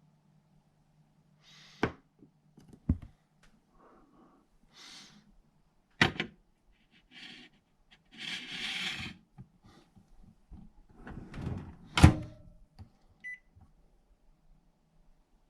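Kitchen handling sounds over a low steady hum: a run of sharp knocks and clatters with short rustling noises, the loudest knock about 12 seconds in, followed by a brief electronic beep.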